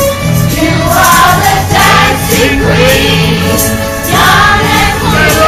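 Loud music with a group of women's voices singing together, over a steady rhythmic accompaniment.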